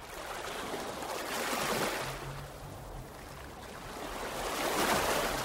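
Ocean waves washing in: two swells of surf that rise and fall away, the first about two seconds in, the second near the end.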